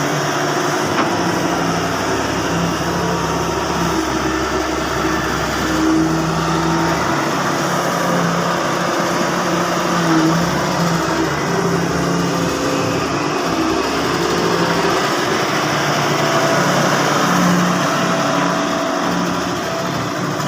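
Excavator's diesel engine running under working load, its pitch rising and falling slightly as the machine works.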